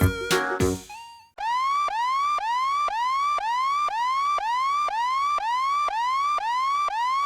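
Music stops about a second in, followed by a repeating electronic whooping tone: identical short rising sweeps, about two a second, like a toy siren.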